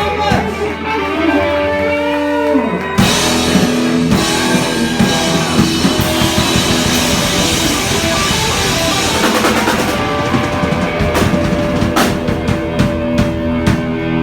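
Heavy metal band playing live through a PA: a distorted electric guitar lead with bent notes over bass, then about three seconds in the full band comes in with drums and crashing cymbals.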